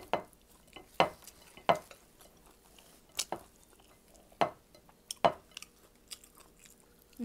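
Close-up eating sounds of a person chewing rice and shrimp: scattered wet smacks and sharp clicks, spaced irregularly about a second apart.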